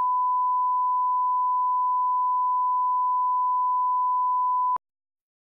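Steady 1 kHz reference tone accompanying SMPTE colour bars, a single unwavering beep that cuts off abruptly near the end.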